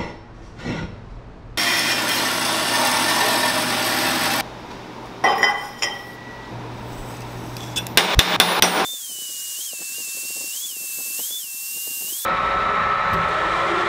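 A run of short metal-shop clips: a machine running with a steady hum, then steel pipe pieces clinking and clanking onto a steel welding table, then a milling cutter machining steel plate under coolant near the end.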